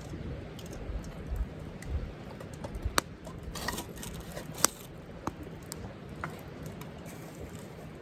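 Wood campfire crackling, with scattered small snaps and sharp pops about three seconds in and again near the middle, over a steady low rush of river water.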